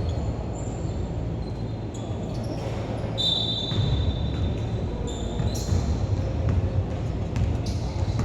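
Pickup basketball game on an indoor court: the ball bouncing on the floor amid steady court din, with brief high squeaks of sneakers on the hardwood about three seconds in and again past the middle.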